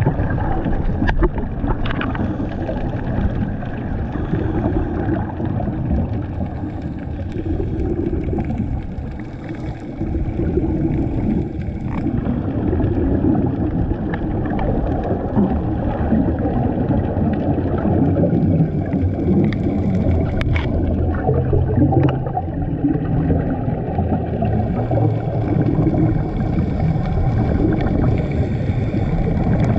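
Muffled underwater rumble with the gurgling of scuba divers' exhaled bubbles, heard from a camera underwater. A few faint clicks are scattered through it.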